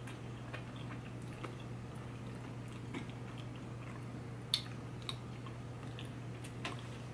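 Faint chewing and wet mouth clicks from eating mochi ice cream, with a sharper click about four and a half seconds in, over a low steady hum.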